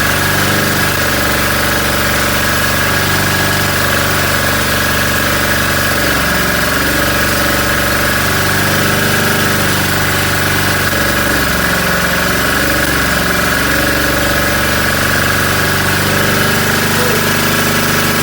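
An engine running steadily, its pitch wavering slightly.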